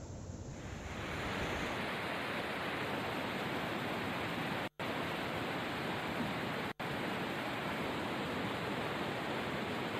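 Muddy floodwater of a swollen mountain stream rushing steadily in a dense, even wash of noise. The sound cuts out completely for an instant twice, about halfway through and again two seconds later.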